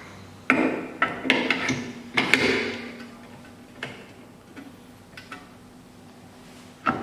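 Metal clicks and knocks as a single-sided key clamp is fitted into an SEC-E9 key cutting machine. There is a cluster of sharp clicks in the first three seconds, then a few sparser ones, over a faint steady hum.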